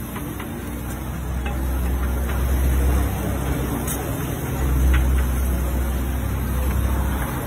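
A steady low rumble that swells twice, with a few light clicks and scrapes of a metal spatula on a dosa griddle.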